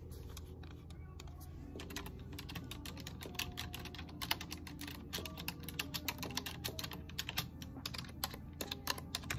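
Typing on a computer keyboard: quick, uneven keystrokes, sparse at first and steady from about two seconds in.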